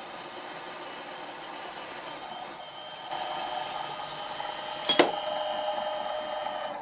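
Machine tool running steadily with a 1/2-inch reamer going through a cast-iron collar; a few steady whining tones. It gets louder about three seconds in, there is a sharp click about five seconds in, and the machine cuts off right at the end.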